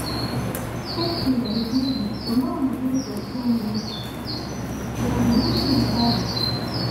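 Small birds chirping repeatedly in short high calls, over a steady low hum.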